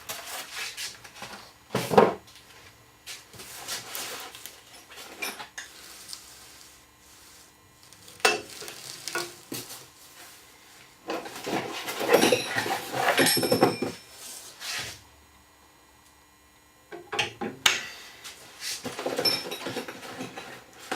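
Polystyrene packing being pulled out of a box, scraping and squeaking, mixed with metal jig parts clinking, in irregular bursts with a quiet pause about two-thirds of the way through.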